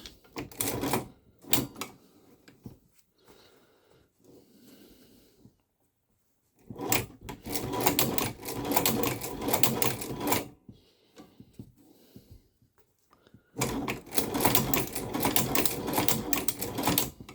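Hand-cranked Chinese shoe patcher sewing machine stitching, a fast clatter of needle strokes. It comes in three runs with pauses between, the first one short, as the back stitch is sewn.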